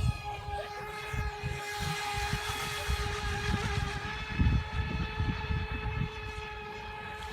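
FT012 RC speed boat's brushless electric motor whining at a steady high pitch as it runs across the water. Wind buffets the microphone in gusts, strongest about halfway through.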